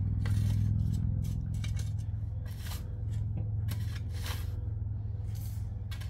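Long-handled shovel scraping through and pushing loose garden soil: several short swishes, roughly one a second, over a steady low hum.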